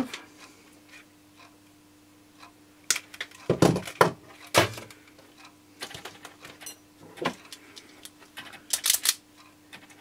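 Hands handling electrical wire and small tools on a workbench: scattered clicks, rustles and light knocks, with a brief cluster of sharp clicks near the end. A faint steady hum runs underneath.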